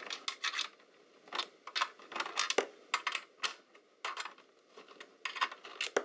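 Hex standoff screws being twisted out by hand from a connector in a docking station's metal back panel: a scatter of small, sharp metallic clicks and light scrapes at irregular intervals.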